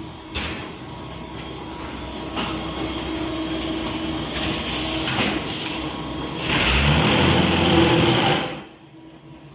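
Concrete block plant machinery running: a steady mechanical hum with a few knocks, swelling into much louder, heavy machine noise for about two seconds, then dropping away sharply near the end.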